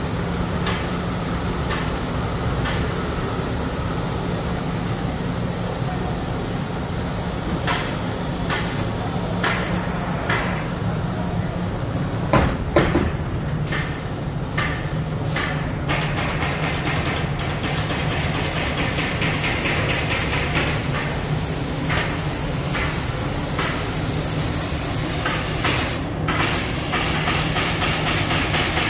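Thermoforming machine running: a steady low hum with repeated short hisses of air, a couple of sharp knocks about halfway, and a stronger, steadier hiss through the second half.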